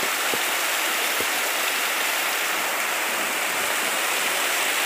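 Heavy rain pouring down steadily, an even hiss of water.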